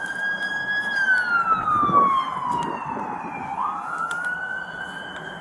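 A siren sounding a slow wail: the tone holds high, glides down over about two and a half seconds, then sweeps quickly back up about three and a half seconds in.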